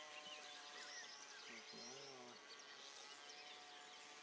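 Faint birds chirping and twittering throughout, with a short, lower call about halfway through, over a quiet outdoor background.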